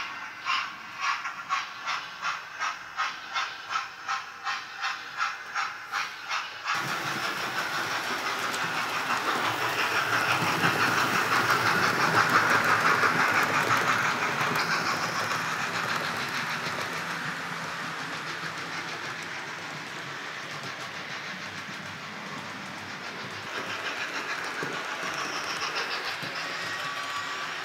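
Hornby OO gauge Black 5 steam locomotive with a TTS sound decoder, its speaker giving steady steam chuffs at about two and a half beats a second. After a sudden change about seven seconds in, a continuous running noise of the model train grows louder and then slowly fades as it passes.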